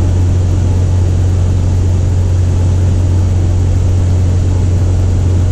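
Steady drone of a Cessna's single piston engine and propeller in flight, heard inside the cabin, with a strong low hum.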